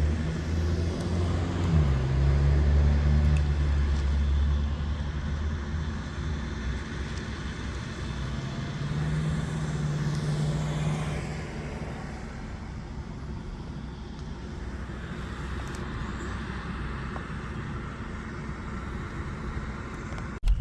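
Engine running with a steady low hum that steps in pitch about two seconds in and fades after about five seconds. A weaker engine hum returns about nine seconds in, over a steady low rumble.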